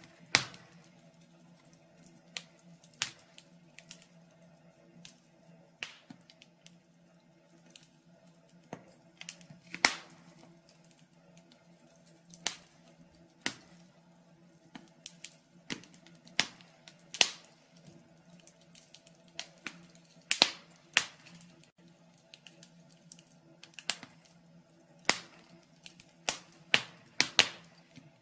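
Wood fire in a fireplace crackling, with sharp pops coming irregularly, roughly one to three a second, over a faint steady hum.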